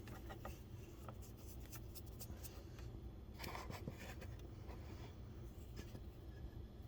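Fingers spreading and rubbing baking soda over the greasy floor under the vertical tray of a Rotimatic roti-making machine: faint, irregular scratching with light taps, over a low steady hum.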